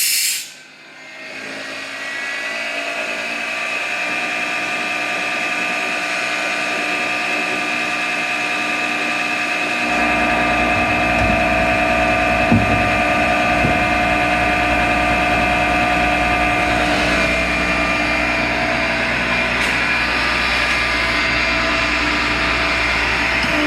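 Panrui 10 HP rotary screw air compressor running on its variable-frequency drive, a steady mechanical whine with several fixed tones. A hiss of air stops in the first second, the running sound builds up over the next couple of seconds, and a deeper hum joins about ten seconds in.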